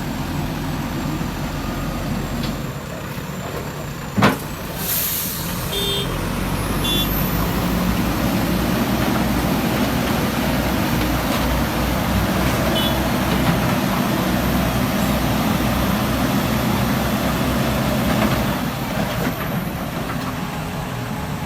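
Diesel truck engine running steadily, with a sudden sharp hiss about four seconds in; the engine grows louder after about six seconds and drops back near the end.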